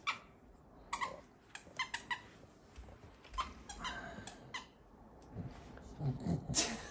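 A dog mouthing and chewing her squeaky toys: a string of short, irregular squeaks and soft rustles, with the loudest squeak near the end.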